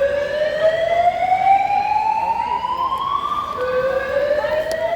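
Electronic evacuation alarm sounding its whoop: a tone that rises slowly over about four seconds, jumps back down about three and a half seconds in, and starts rising again.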